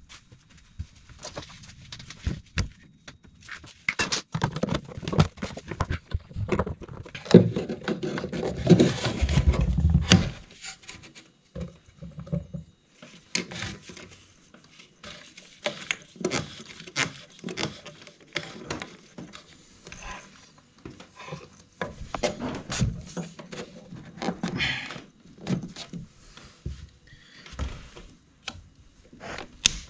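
Hands working on plastic condensate pipe and its fittings against a wall: irregular clicks, knocks and scrapes, with a louder run of heavier thumps about eight to ten seconds in.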